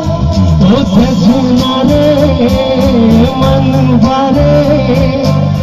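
Live band music: a male singer sings a Bengali love song into a microphone over electric guitar and keyboard accompaniment.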